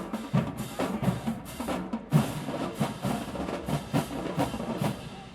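Marching band drumline playing a percussion cadence: snare and bass drums striking in a steady, even rhythm.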